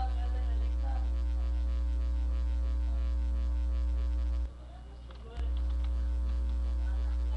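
Loud, steady low electrical hum, typical of mains hum on the recording. It cuts out for about a second around the middle and then comes back.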